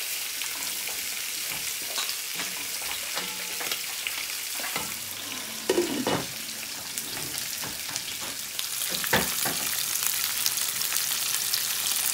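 Pieces of katla fish frying in oil in a pan, a steady sizzle that grows louder near the end. A wooden spoon stirs a pot of curry sauce, and a glass lid is set down on the pot with a knock about six seconds in.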